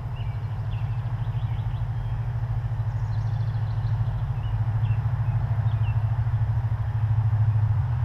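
A low engine drone with a rapid pulse grows gradually louder, peaking near the end before easing off. Small birds chirp faintly a few times over it.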